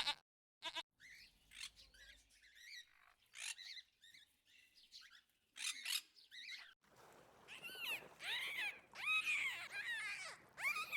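Several young farm animals bleating, short wavering calls at first, then many overlapping calls from about seven seconds in.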